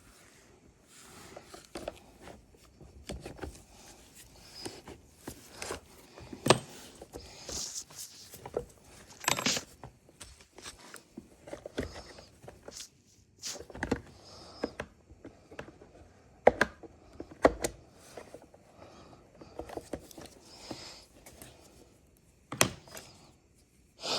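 Irregular clicks, taps and knocks of tools and small chainsaw parts being handled during a repair, with a few sharper knocks among them.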